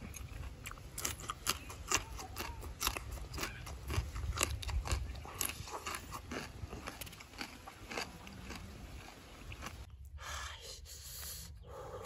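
Close-up chewing with crisp crunches, a few each second: a person biting and chewing raw long beans. The crunching thins out over the last few seconds.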